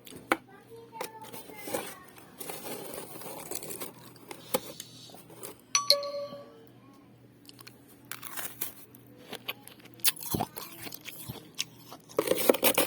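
Refrozen shaved ice being bitten and chewed: irregular sharp crunches, thickest near the end, with a short high-pitched tone about six seconds in.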